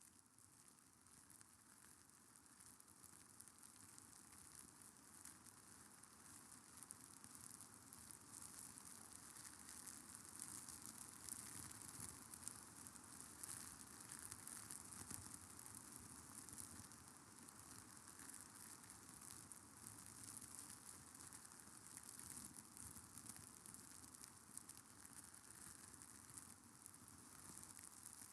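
Faint, steady crackling hiss made of many tiny ticks, slowly growing a little louder over the first ten seconds or so.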